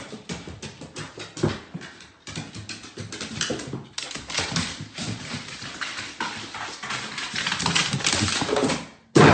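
A dog's claws and paws clattering on hardwood stairs as it goes down them, a rapid, uneven run of clicks and taps with a few short pauses.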